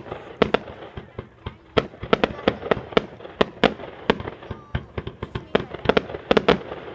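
Fireworks display at close range: a rapid, irregular barrage of sharp bangs, several a second, with some in quick pairs.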